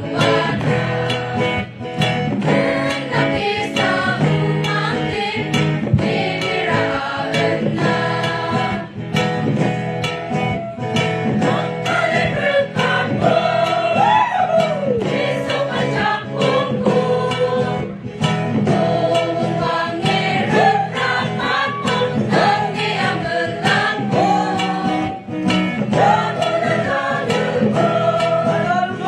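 A choir of women singing a song together, with an acoustic guitar accompanying underneath.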